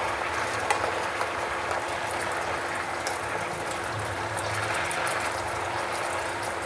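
Soy and calamansi sauce simmering around pork chops in a nonstick pan, bubbling and crackling steadily, with light clicks of metal tongs against the pan as the chops are turned.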